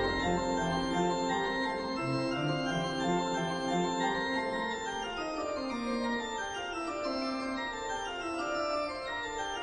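Background music of sustained organ-like chords, with a slow run of notes stepping downward in the second half.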